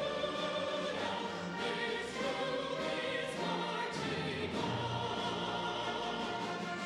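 A live vocal ensemble singing with a symphony orchestra: several voices over sustained orchestral accompaniment.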